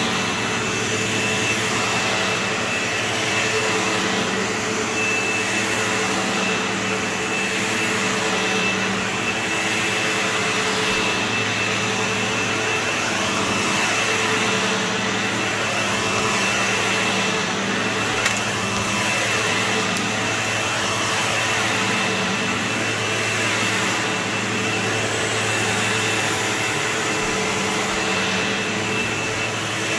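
Sebo X4 upright vacuum cleaner running steadily over carpet, with a steady high whine over its motor and airflow noise. The sound swells and dips slightly as the vacuum is pushed and pulled across the pile.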